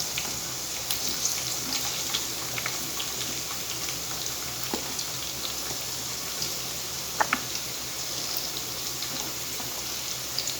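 Sliced onion sauteing in hot oil in a pan: a steady sizzle with scattered small crackles and pops, and a couple of sharper clicks about two-thirds of the way through.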